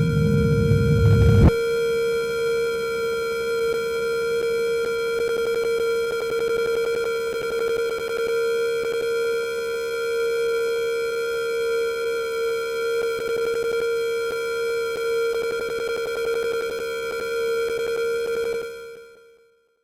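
Synthesized sci-fi "galactic signal" sound effect: a steady electronic tone with several fainter higher tones above it. A low rumble underneath cuts off suddenly about a second and a half in, and the signal fades out near the end.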